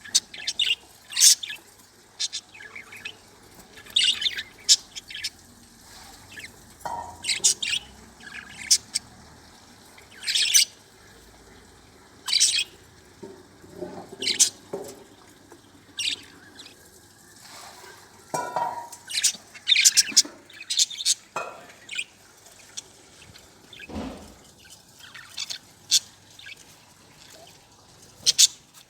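Budgerigars chirping: many short, sharp, high-pitched calls at irregular intervals, with a few lower, harsher calls mixed in.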